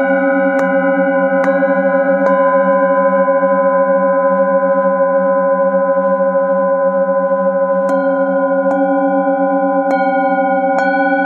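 Metal singing bowls struck with a padded mallet, their overlapping tones ringing on together with a pulsing low hum. A few strikes land in the first two seconds or so, the bowls then ring untouched for about five seconds, and the strikes start again about eight seconds in.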